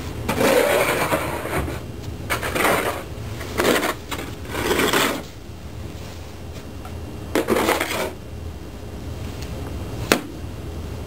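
Old English Sheepdogs pawing and scuffling in snow: five short, noisy bursts over the first eight seconds, then a single sharp click about ten seconds in.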